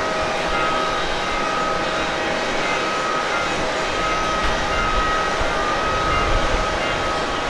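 Jet airliner engine noise: an even rush of air with a high whine held at one steady pitch.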